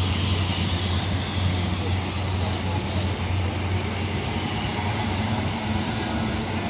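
First Great Western passenger train passing close by, giving a steady low drone with the rumble of its wheels on the track.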